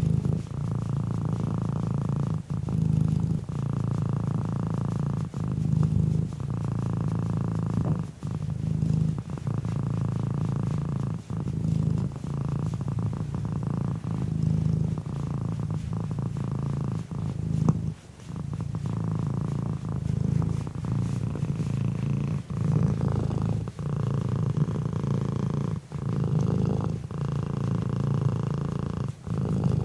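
Domestic cat purring steadily, a low continuous rumble broken by brief pauses every two to three seconds.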